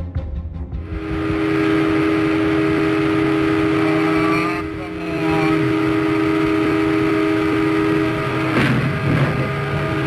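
Train horn sounding a long, steady multi-tone chord, dipping briefly about four and a half seconds in. A sudden noisy burst cuts across it near the end, and the horn sounds again after it.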